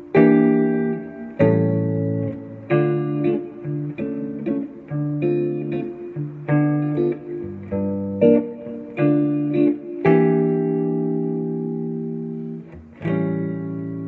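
Electric guitar playing a slow jazz ballad: picked notes and chords that ring on and overlap, over a looped chord backing.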